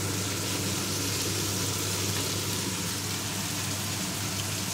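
Chicken and rabbit pieces sizzling steadily in hot olive oil in an electric paella pan, with a low steady hum beneath.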